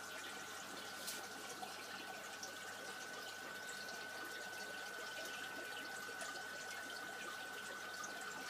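Aquarium water trickling and splashing steadily, with many small drip-like ticks, over a steady high whine.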